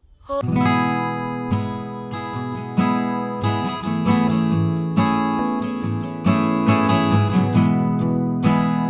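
Background music of strummed acoustic guitar, starting about a third of a second in after a moment of silence, with chords struck at a steady beat.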